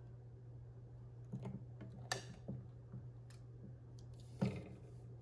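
A few sharp clicks and light clacks from a hand impulse heat sealer as its pressed-down sealing arm is let go and lifted and the freshly sealed vinyl balloon is handled, the loudest clack near the end. A low steady hum runs underneath.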